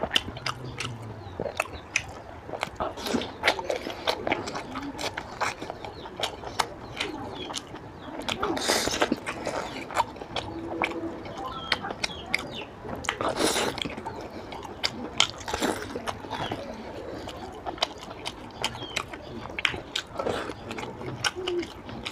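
Close-miked mukbang eating: a person chewing and smacking on fried fish and oily curry with rice, a dense run of wet mouth clicks and bites. Two louder, noisier bites come about nine and thirteen and a half seconds in.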